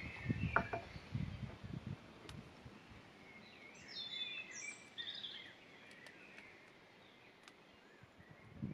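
Songbirds chirping and singing over a faint steady outdoor hiss, with a brighter run of song a few seconds in. A few soft low bumps sound in the first second or so.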